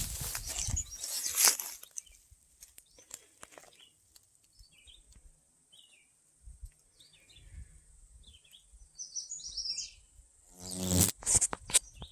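Small birds chirping in short, scattered calls over a steady high insect drone, with rustling at the start and a brief loud noise near the end.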